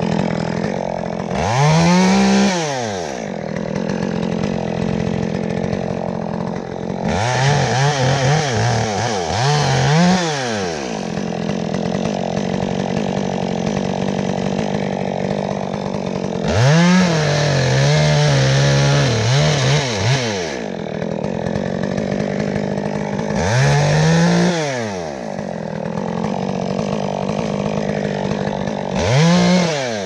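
Two-stroke top-handle chainsaw idling between cuts and revved up to full speed about six times. The longest burst comes around the middle and is held for about four seconds as the saw goes into a limb.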